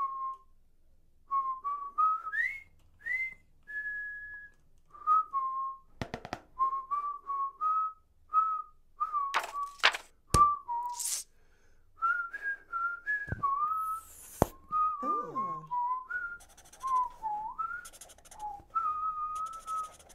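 A person whistling a tune in short notes that rise and fall, with pauses between phrases. A few sharp knocks come in between.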